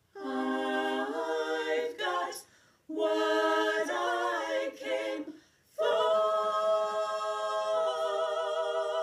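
A cappella group of voices singing without accompaniment, in three phrases: the third begins about six seconds in and is held as one long note.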